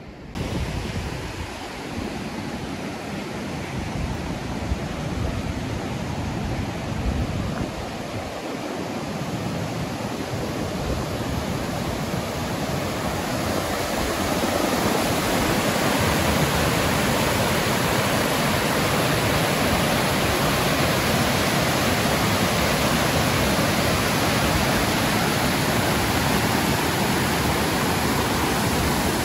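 River water rushing over a small weir and rocks, a steady loud roar of falling water that grows louder over the first half and then holds steady.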